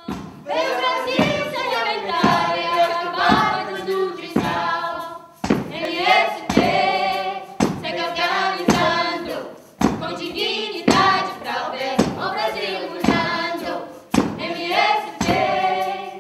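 A choir of voices singing in phrases, over a steady beat of sharp hits about once a second, like hand claps or stamps.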